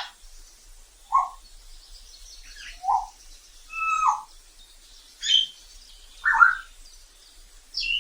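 Congo African grey parrot calling: a series of about six short whistles and squawks, roughly one a second, some sliding down in pitch.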